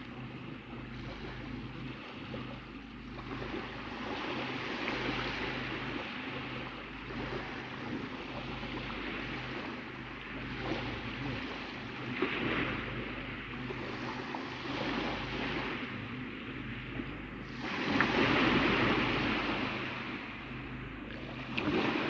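Sea waves washing on the shore: a continuous rush of noise that swells every few seconds, with some wind on the microphone and a faint steady low hum beneath.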